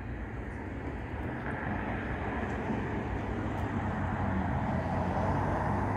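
A low, steady engine rumble that grows louder through the second half.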